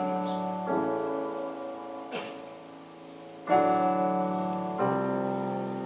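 Slow piano chords in a live ballad accompaniment: three chords struck about a second, three and a half and five seconds in, each left to ring and fade.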